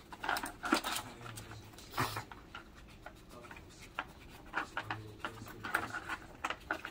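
A small dog nosing at a plastic treat-puzzle toy: irregular light clicks and taps as the plastic pieces knock and shift, with some rubbing.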